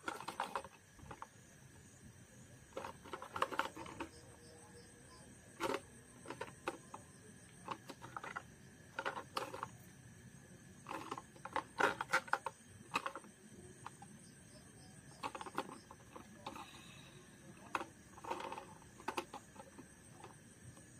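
Plastic toy cars being handled and shifted about in a cardboard box: irregular light clicks, knocks and rustles of plastic against plastic and cardboard, in short clusters every second or two.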